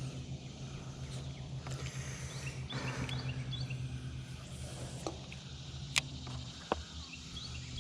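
Outdoor river ambience: a steady low hum and hiss, with short high rising chirps from small birds or insects and a few sharp clicks.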